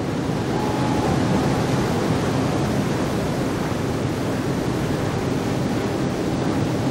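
Rushing white water, a loud steady noise that swells slightly in the first second.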